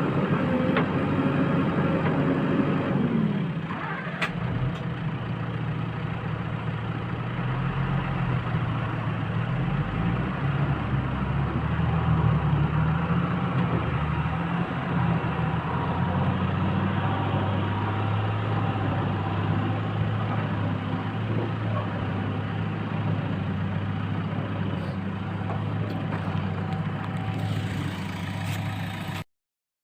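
Diesel engine of a JCB 3DX backhoe loader running. Its note falls about three seconds in, then holds at a lower, mostly steady speed with small changes in pitch, and the sound cuts off abruptly near the end.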